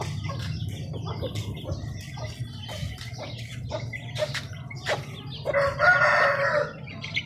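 Chickens clucking in short calls, then a rooster crows once, for about a second, about five and a half seconds in. The crow is the loudest sound.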